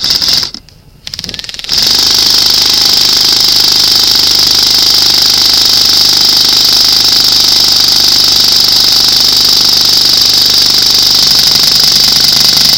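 Airsoft electric gun firing on full auto, very loud and close: a short burst, a second brief burst about a second later, then a long unbroken burst of about eleven seconds.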